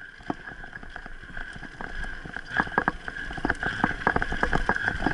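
Mountain bike rolling down a dirt trail: tyres on packed dirt with the bike's frame and chain rattling and clicking over bumps, growing louder and busier about halfway through, over a low rumble and a steady high whine.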